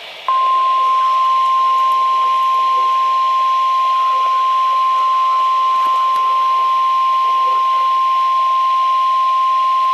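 NOAA Weather Radio 1050 Hz warning alarm tone: one steady, loud, high tone lasting about ten seconds over faint radio hiss. It signals that an emergency alert, here a flood warning, is about to be read.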